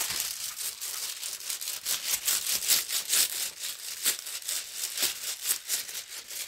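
Clear plastic protective sheet crinkling and rustling under hands smoothing it flat over a diamond-painting canvas: a dense, irregular run of crisp crackles.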